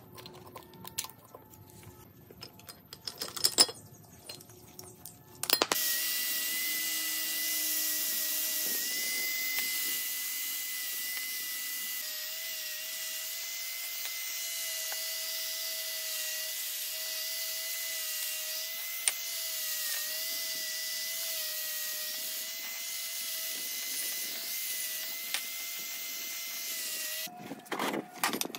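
A handheld electric power tool starts about five and a half seconds in and runs steadily, a high whine with hiss, until it stops near the end. Before it come metal clicks and a sharp knock as the parts of a car air-conditioning compressor are handled and pried apart.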